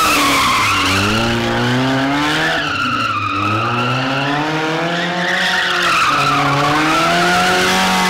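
Swapped-engine Mazda Miata doing donuts, its tyres screeching while the engine revs climb and fall twice and then hold steady near the end. The engine is running on maple syrup in place of engine oil.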